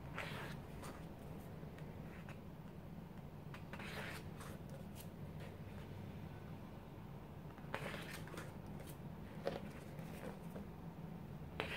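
Glossy pages of a thick photo book being turned by hand: a soft paper swish and rustle four times, roughly every four seconds, with a few lighter paper ticks between. A faint steady low hum runs underneath.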